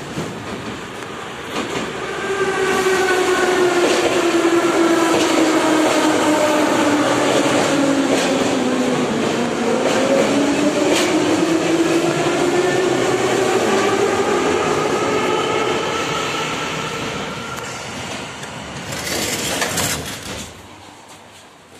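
Type E metro train arriving at the platform: wheels rumbling on the rails and the traction motors whining, the whine falling in pitch as the train slows, with a second whine rising in pitch after it. A short loud hiss comes near the end.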